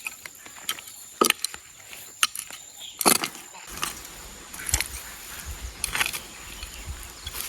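Irregular light knocks and rustles of handling or movement, roughly one a second, over a faint steady high whine.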